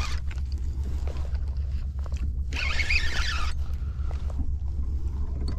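Spinning reel and line working during a fight with a heavy fish on the line: two short hissing bursts, one just at the start and one about three seconds in, with faint clicks over a steady low hum.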